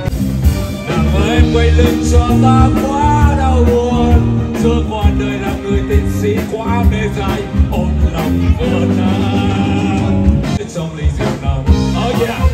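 A male singer sings an upbeat Italian song with Vietnamese lyrics over a live band with a steady drum beat, amplified through the hall's PA.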